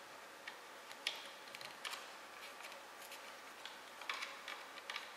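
Scattered light clicks and ticks of hand work on a 3D printer's heated bed: a Phillips screwdriver turning a bed-levelling corner screw and the print head moved by hand, with about four sharper clicks among fainter ticks.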